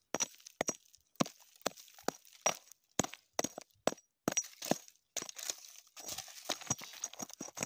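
A hand digging tool striking and scraping stony, gravelly soil: irregular sharp knocks and clinks of metal on stone, about two a second, with a steadier scrape of loose gravel between the strikes near the end.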